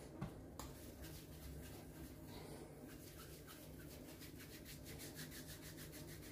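Palms rubbing together as they roll soft mashed-yam croquette mixture into logs: a faint hissy rubbing that becomes quick, rhythmic strokes in the second half, after a soft knock just after the start.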